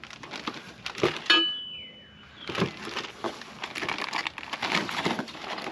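Steel running-board mounting brackets clinking and knocking together as they are handled and counted. One sharp metal strike about a second in rings briefly, followed after a short lull by a run of small clatter and rustling.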